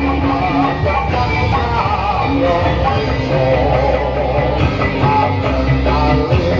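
Loud live music accompanying a Topeng Ireng dance, with a heavy sustained bass line, drums and a wavering melody line.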